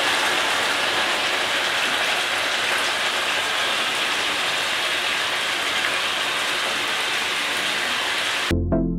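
Hilsa fish curry simmering and sizzling steadily in a non-stick pan on a gas stove while mustard paste is poured in. The sound is cut off abruptly near the end and loud electronic music begins.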